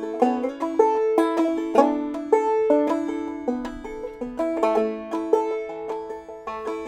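Clawhammer banjo playing a melody, with quick plucked notes and a rhythmic strum-and-brush pattern.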